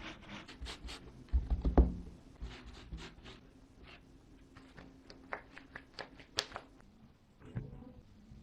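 Food-preparation handling sounds: a string of light clicks and taps, with a heavier low thud about a second and a half in.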